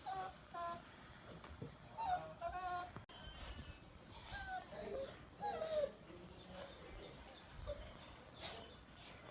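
Puppies whimpering and yipping: a series of short, high-pitched whines, with very thin, higher squeaks from about four seconds in.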